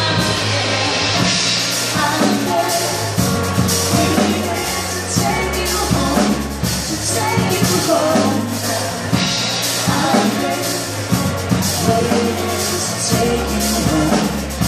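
A live band playing: a drum kit keeping a steady beat under keyboards, with sustained low bass notes.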